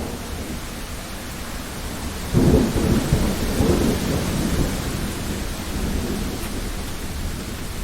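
Steady rain falling, with a sudden thunderclap about two and a half seconds in that rolls in several deep swells for a couple of seconds before settling back into the rain.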